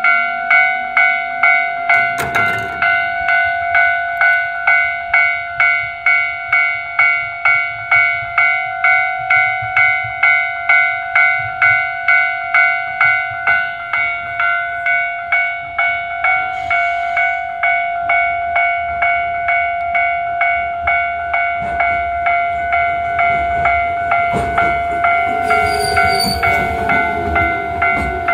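Railway crossing warning bell ringing steadily, about two strikes a second, signalling an approaching train. In the last few seconds an Echizen Railway electric railcar rumbles in with a falling whine and a brief high squeal as it slows.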